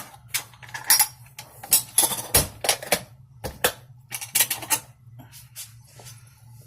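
Small metal objects clicking and clinking as they are handled and put away, a quick run of sharp clacks with a dull knock about two and a half seconds in.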